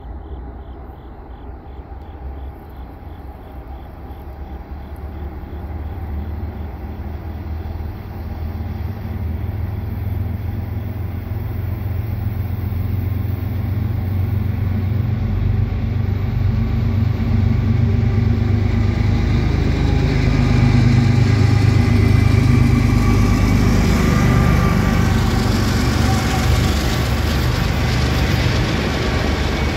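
Freight train approaching with its diesel locomotive growing steadily louder. The locomotive passes about twenty seconds in, then a string of autorack cars rolls by with steady wheel-on-rail noise.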